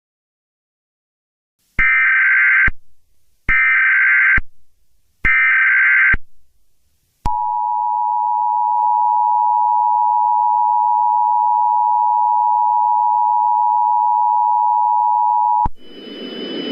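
Emergency Alert System header: three short bursts of warbling SAME digital data tones, each just under a second long, followed by the EAS two-tone attention signal, a steady dual tone held for about eight seconds. Near the end the tone cuts off and a rushing noise begins.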